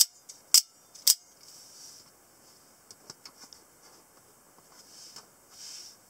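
Scarab D/E automatic out-the-front knives handled: three sharp metallic clicks within about a second, then a few lighter clicks and a soft rustle near the end.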